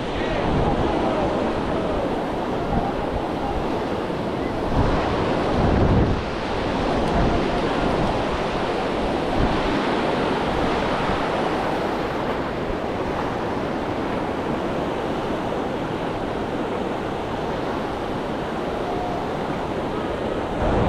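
Ocean surf washing steadily onto a beach, with wind buffeting the microphone in a few gusts, strongest near the start and about five to six seconds in.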